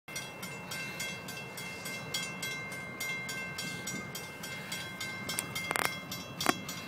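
Railroad grade-crossing bell ringing steadily at about three strikes a second over the low rumble of a train, with a few sharp clanks near the end.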